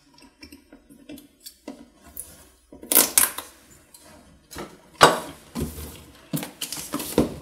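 Hands handling a cardboard box: fingernails picking at and peeling the sticker that seals it, with short scrapes and knocks as the box is turned on the table, the loudest about three and five seconds in.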